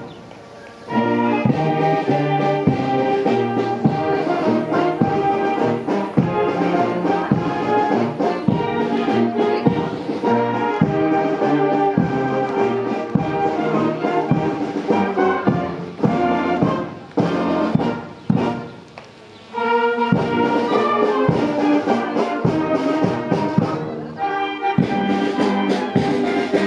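Marching wind band playing outdoors: brass and saxophones carrying the tune over a steady drum beat. The music drops away briefly near the start and again about two-thirds of the way through.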